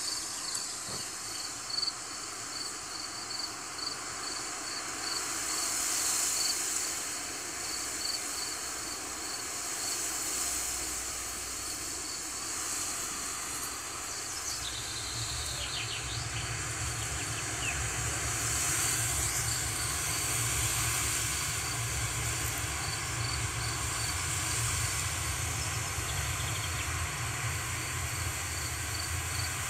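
Wind rustling through grass in a steady hiss that swells and eases, with an insect chirping regularly, a little under twice a second. About halfway through a low rumble of wind on the microphone comes in.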